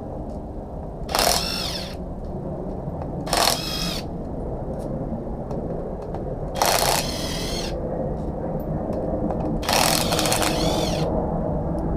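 A handheld power tool spinning in four short bursts, about a second each, its motor whine rising and falling each time, as bolts are run out of a Honda B18C engine during teardown. A steady low hum runs underneath.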